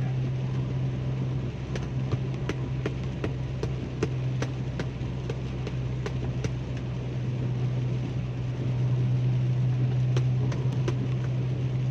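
Car interior noise while driving on a highway in heavy rain: a steady low engine and road drone under a hiss, with scattered sharp ticks of rain striking the car. The drone gets a little louder about two-thirds of the way through.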